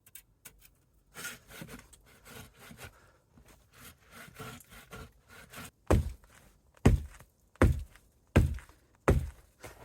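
Handsaw strokes rasping through a fallen log, followed about six seconds in by a run of six heavy thuds against the wood, less than a second apart.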